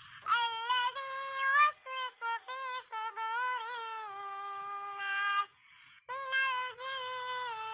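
High-pitched, synthetic-sounding voice chanting a Quran recitation in murottal style, with long held notes that glide between pitches and a short break about five and a half seconds in.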